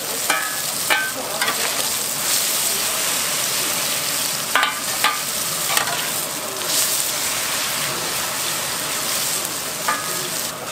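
Jeon (Korean pancakes) frying in oil on a large iron griddle: a steady sizzle throughout, with a few brief clinks scattered through it.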